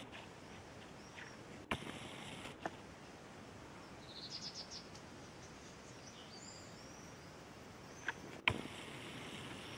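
Quiet rural outdoor ambience. About four seconds in, a small bird gives a short rapid trill that rises in pitch, followed by a few high chirps. There are several sharp clicks, the loudest near the start and near the end.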